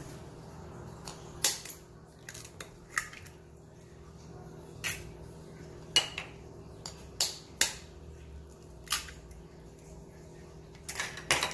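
Two eggs cracked with a knife blade into a small ceramic bowl: a string of sharp, separate taps and clicks of the knife on the shells and the shells against the bowl, spaced irregularly, the loudest near the start and near the end.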